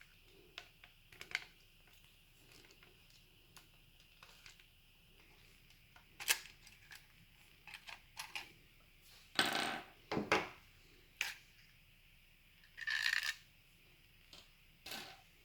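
Small clicks and metallic clinks of a screwdriver and parts as the main spring is worked out of an opened Gen 8 gel blaster gearbox. There are a few louder clatters, near the middle and again about two-thirds of the way in, one of them briefly ringing.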